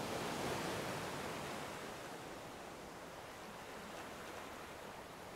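Sea waves washing on a shore: a steady rushing hiss that swells in the first second and then slowly dies back.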